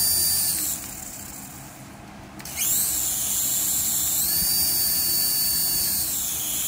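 Small coaxial toy RC helicopter's electric rotor motors whining at a high pitch. The whine winds down just under a second in, spins back up about two and a half seconds in, rises in pitch around four seconds and drops back near six seconds as the throttle is worked.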